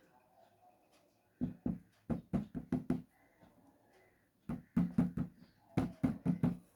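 Two quick runs of knocks, about a second and a half each, several strikes a few tenths of a second apart.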